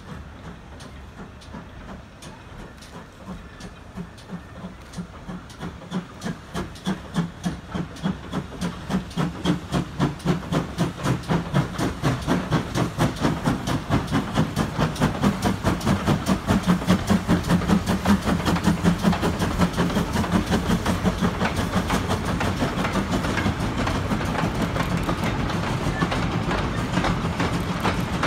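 GWR 5600 class 0-6-2 tank engine No. 5619 working a goods train, its exhaust beats growing louder as it climbs past at roughly two to three a second, loudest about halfway through. Then the goods wagons rattle and clatter past on the rails, with a steady steam hiss.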